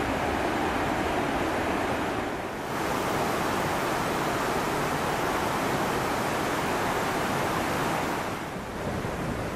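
River water rushing over small limestone cascades around the stilts of wooden watermills: a steady rush that dips briefly twice.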